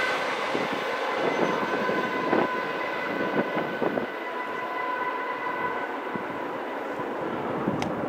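Freight train moving away, with the rumble of its trailing GE ET44AC diesel locomotive and the steel wheels on the rails fading. Scattered sharp wheel-and-rail clicks and a few faint steady high tones run through it.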